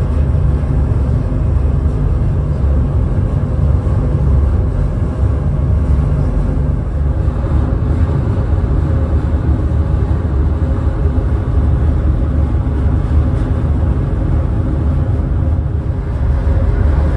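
Steady low rumble of a large car ferry's engines running slowly as it berths, heard from the open deck, with no change in level.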